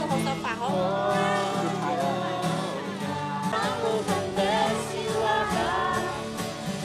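A song with singing over a steady instrumental backing.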